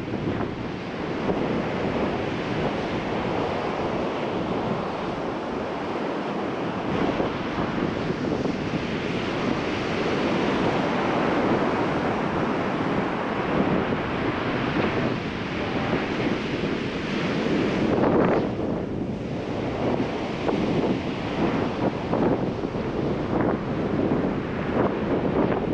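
Ocean surf breaking and washing up a sandy beach in a continuous rush, swelling louder about two-thirds of the way in, with wind buffeting the microphone.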